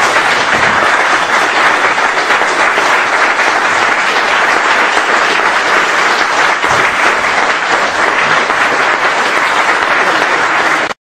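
Audience applauding steadily after a speech, a dense continuous clapping that cuts off suddenly near the end.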